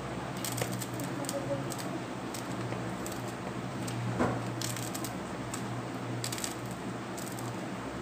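Kitchen knife slicing through a handful of chaya (tree spinach) leaves held in the hand, with no cutting board: short crisp cuts at irregular intervals.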